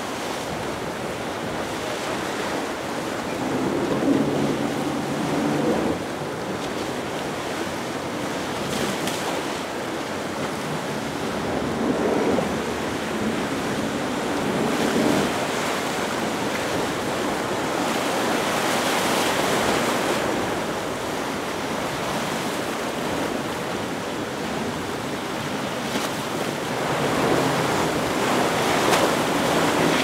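Choppy water and a large motor yacht's bow wave and wake rushing, with wind buffeting the microphone. A low engine drone swells up out of the water noise a few times.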